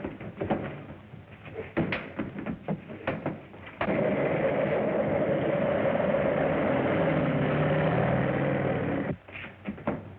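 Train noise on an early-1930s film soundtrack. Irregular clattering and knocks, then about four seconds in a loud, steady rushing noise that holds for about five seconds and cuts off suddenly, followed by more knocking.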